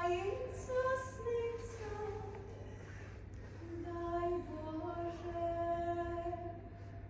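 A woman singing a slow, unaccompanied melody with long held notes, in two phrases with a short pause between them.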